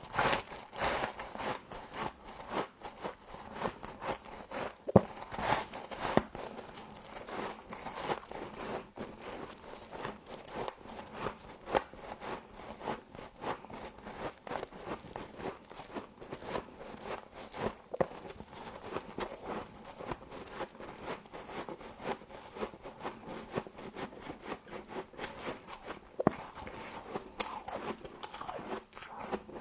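A person biting and chewing frost, a continuous irregular crunching and crackling with a few louder crunches now and then.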